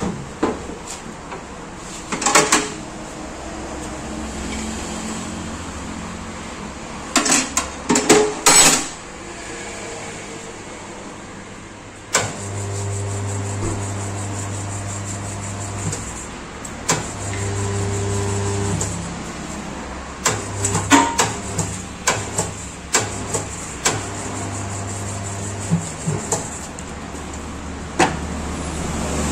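Electric tyre-changing machine working a motorcycle tyre's bead over the rim. Its turntable motor hums in stretches of a few seconds, and between them come metallic clanks and knocks from the mounting head, the rim and the tyre.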